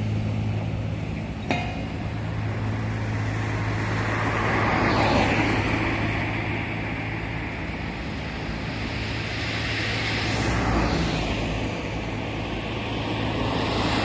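Road traffic on a city street: vehicles passing one after another in slow swells over a steady low engine hum.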